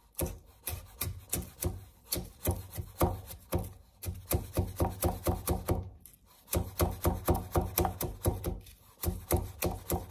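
Chef's knife chopping green chillies on a cutting board: quick rhythmic knocks of the blade striking the board, in fast runs of several strokes a second broken by short pauses.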